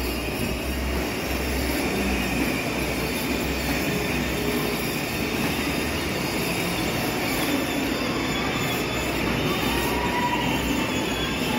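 Battery-powered ride-on toy motorbike driving across a tiled floor: the steady whir of its small electric motor and hard plastic wheels rolling, with no break.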